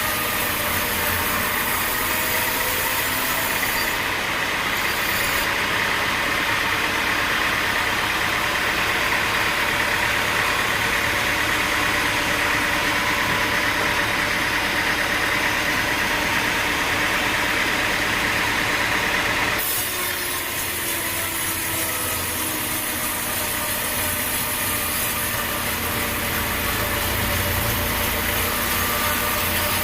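Sawmill machinery running steadily, an engine-driven drone with saw noise in wood. The sound changes abruptly about two-thirds of the way through.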